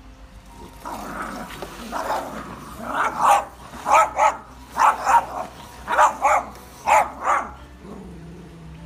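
Small dog growling, then barking sharply in quick pairs, about five pairs of barks over four seconds.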